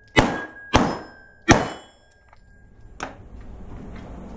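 Three rapid 9mm pistol shots about two-thirds of a second apart, echoing in an indoor range, with the struck steel plates ringing briefly after the hits. A fainter knock follows about three seconds in.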